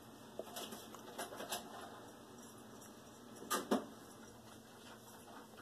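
Saucepan of water heating toward the boil, a faint hiss with scattered small ticks and pops as bubbles form on the bottom of the pan. A louder pair of clicks comes about three and a half seconds in.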